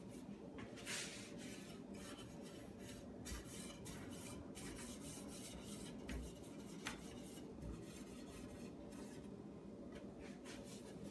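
Faint rubbing of a small pad across a finished oak chair seat, working over the beeswax polish in intermittent scratchy strokes, loudest about a second in.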